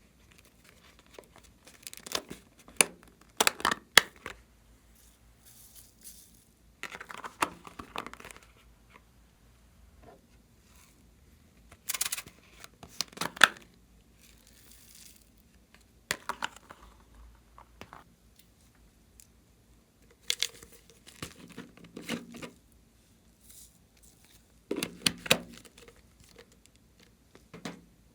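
Glossy slime being pressed, stretched and pulled apart by hand. It gives clusters of sticky clicks, pops and crackles every few seconds, with quiet between.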